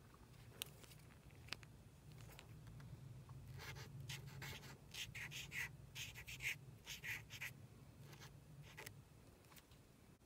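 Marker pen scratching across a small card in a run of quick, short strokes, thickest from about four to nine seconds in, over a faint low hum. Two small sharp clicks come about half a second and a second and a half in.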